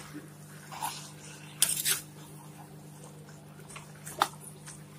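A spoon stirring and scraping chicken, vegetables and coriander leaves in an earthenware clay pot: a few short scrapes and clicks, the loudest about one and a half seconds in. A steady low hum runs underneath.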